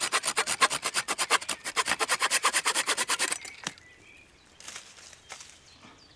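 Folding pruning saw cutting through a thin wooden branch with fast, even rasping strokes, several a second. The sawing stops a little over three seconds in, followed by a single sharp knock.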